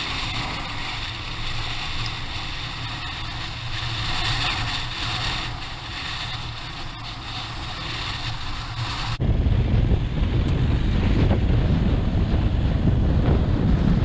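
Aprilia Tuareg 660's parallel-twin engine running under way off-road, mixed with wind on the microphone. About nine seconds in the sound changes suddenly to louder, heavy low wind buffeting that covers the rest.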